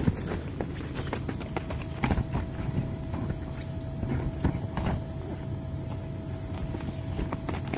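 Inflatable bounce house's electric blower running with a steady hum, while a Dogue de Bordeaux puppy's paws thud irregularly on the inflated vinyl.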